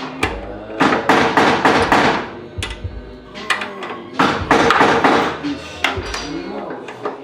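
Rapid metallic knocking in two bursts, about a second in and again about four seconds in, with a few single knocks between: tool work on the car's bodywork.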